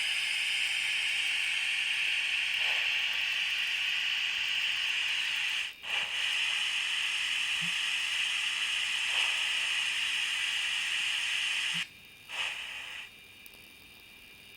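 Steam hiss from a QSI sound decoder in a model steam locomotive, played through its small speaker. The hiss is steady, breaks off briefly about six seconds in, and stops near the end, followed by one short hiss.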